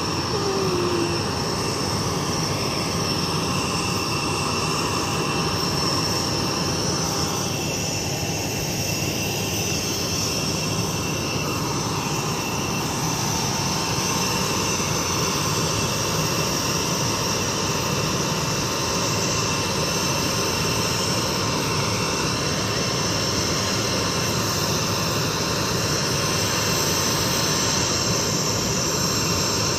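Jet aircraft on the ramp running steadily, a constant whine with several held high tones over a broad rumble.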